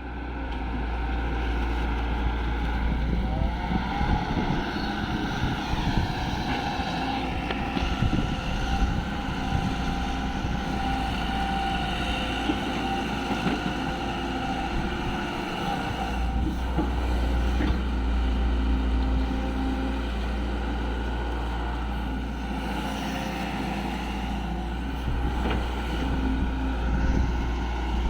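Excavator's diesel engine running steadily, its pitch rising and falling a little now and then, with wind rumbling on the microphone.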